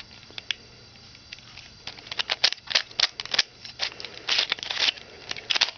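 Gold Mirror Block, a plastic 3x3 shape-shifting puzzle cube, being turned quickly by hand, its layers clicking and clacking in quick irregular runs starting about two seconds in.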